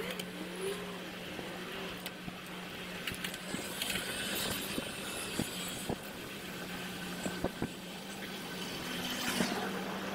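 Bicycle ride heard through a handlebar action camera and played back at six times speed: wind and road noise under a steady hum, with scattered short clicks and ticks.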